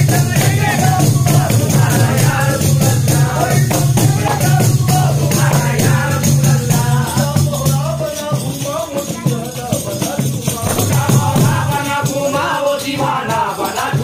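Devotional Sufi music: men's voices chanting together over a fast, even beat of hand-played frame drums (daf) with a jingly, rattling edge. A low steady drone beneath them cuts out about eight seconds in.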